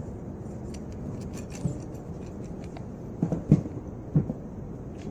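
A few light knocks and clicks from a wooden queen-cell bar and grafting tool being handled, the loudest pair about three and a half seconds in, over a steady low background rumble.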